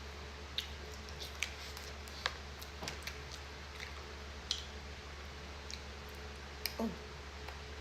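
A person eating close to the microphone: scattered soft wet clicks and smacks of chewing, a few a second at irregular intervals, over a steady low electrical hum. Near the end there is a brief sound that falls in pitch.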